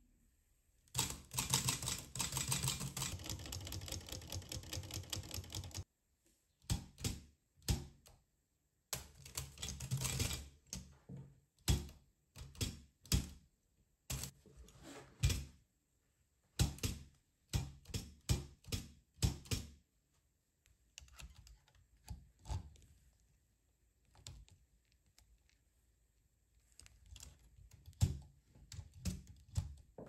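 Smith Corona Silent manual typewriter being worked by hand: a fast run of clatter for about five seconds, then separate key strikes and mechanism clicks, a few a second, growing fainter near the end.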